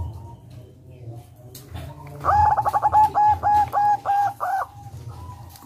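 Zebra dove (perkutut) singing a rolling run of about eight quick, evenly spaced cooing notes, starting about two seconds in and ending well before the end.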